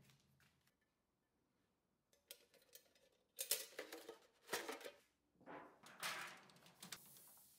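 Light metallic clanks and scrapes as sheet-steel pellet-grill parts and a small galvanised grease bucket are handled and set in place: about four short bursts, starting a couple of seconds in.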